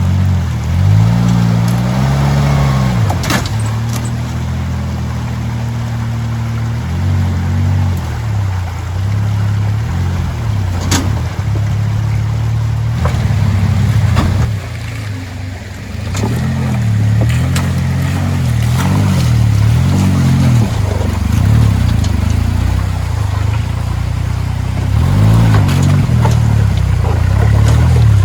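Suzuki Jimny JA11's small turbocharged three-cylinder engine revving up and down over and over under load as it crawls, with a few sharp knocks about three and eleven seconds in.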